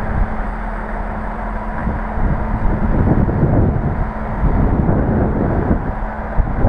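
Regional diesel railcar running into the station, its engine and wheels on the rails rumbling steadily and getting louder from about two and a half seconds in.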